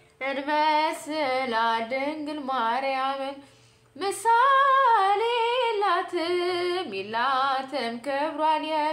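A woman singing an Ethiopian Orthodox mezmur (hymn) unaccompanied, in long, sliding melismatic phrases, with a breath pause about three and a half seconds in.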